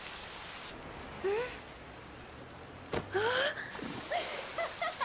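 Rain falling steadily, its hiss dropping away just under a second in. Then short rising vocal sounds, with a sharp click about three seconds in.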